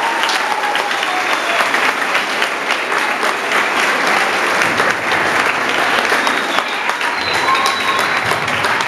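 Audience applauding: dense, steady clapping from many hands, with a voice briefly heard over it about seven and a half seconds in.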